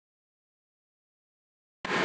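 Dead silence, then just before the end a steady machine whir cuts in abruptly: a band saw running.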